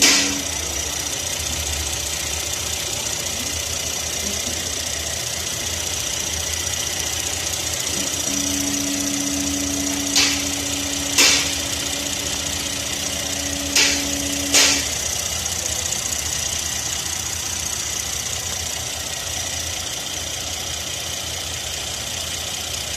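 Car engine idling steadily, with a low pulsing rumble. A steady low hum joins it in the middle, along with a few sharp clicks.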